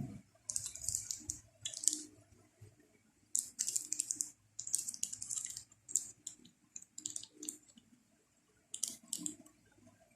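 Small hard parts of a WE Glock 17 gas blowback airsoft pistol being handled during disassembly: a series of about seven short, hissy scraping sounds with quiet gaps between them.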